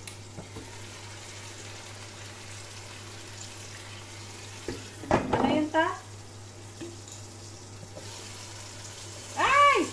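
Mussels sizzling steadily in a covered frying pan on the stove. A voice cuts in briefly about five seconds in and again near the end.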